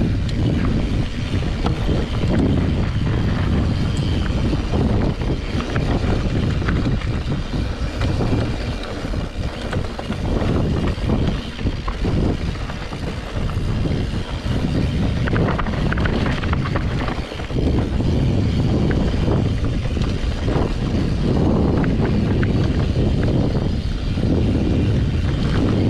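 Wind buffeting the camera microphone in a steady low rumble as a mountain bike rolls fast down a gravel trail, its tyres crunching and the bike clicking and rattling over stones and bumps.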